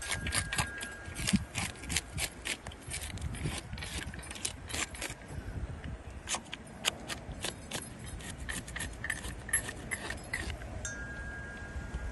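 A knife scraping the scales off a largemouth bass: a quick run of short, sharp scraping strokes of the blade against the scales.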